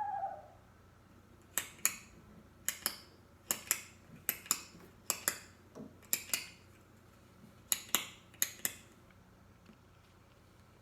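A retractable pen being clicked over and over, in quick double clicks (press and release) about once a second. A brief falling tone sounds right at the start.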